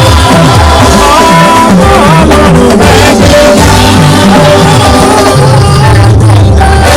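Loud music with drums and a bass line that slides up and down under held tones.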